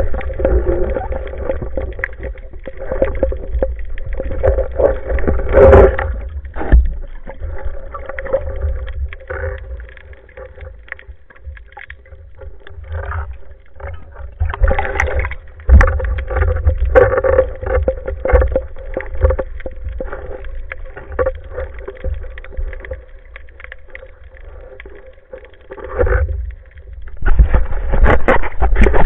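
Muffled underwater water noise picked up through an action-camera housing as the diver swims, with scattered knocks and louder water surges, the loudest as the camera nears the surface near the end. A faint steady hum of two close tones runs underneath.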